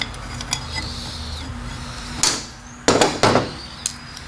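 Metal transmission parts clanking against each other and the steel workbench as clutch plates are pried out of a TH350 clutch drum with a screwdriver. There is a clatter about two seconds in and two loud knocks a little after three seconds.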